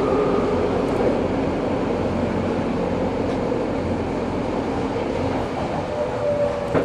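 Eidan 03 series subway train running between stations, heard from inside the car: a steady rumble of wheels on rail that slowly eases. About six seconds in, a faint steady tone comes in, followed by a single click near the end.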